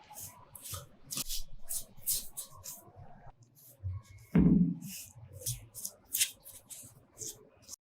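Short rubbing or scraping strokes by hand, a few a second, with one louder thump about four and a half seconds in; the sound then cuts off abruptly.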